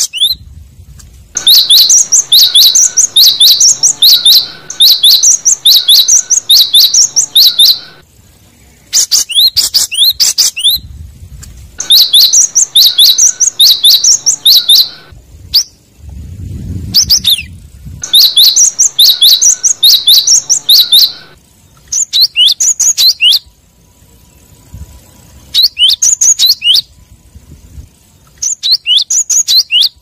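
Cinereous tit (gelatik batu) singing loudly: bouts of several seconds of fast, repeated high, sharp down-slurred notes, broken by short pauses.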